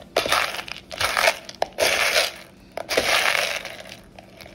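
Dry Peruvian beans being raked through by hand, rustling and clattering in four bursts about a second apart.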